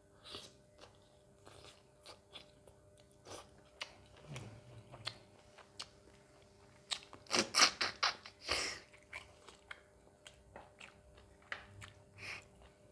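Close-up eating sounds from biting and chewing mutton nalli (shank bone) in curry: scattered wet clicks and crunches, with a denser, louder run of mouth noises about seven to nine seconds in.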